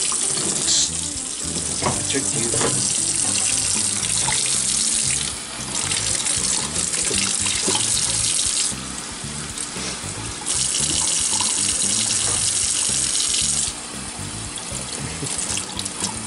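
Water running from a tap into a sink, a steady splashing hiss that shifts in level several times as the stream is broken up, with background music underneath.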